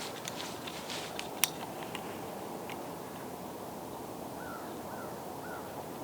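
Light crackling and rustling in dry leaves with one sharp click, then three faint short calls in quick succession near the end, over a steady outdoor hiss.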